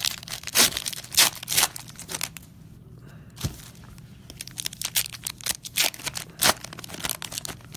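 Trading-card pack wrappers being torn open and crinkled by hand: a run of sharp crackling rips, a short lull, then more crackles between about five and seven seconds in.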